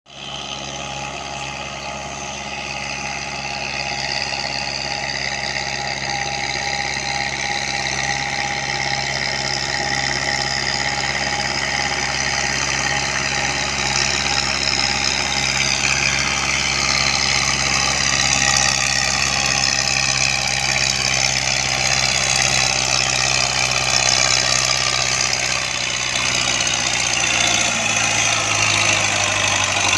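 Tractor diesel engine running steadily at a low, even pitch while hauling a heavily loaded sugarcane trailer, growing gradually louder as it comes closer.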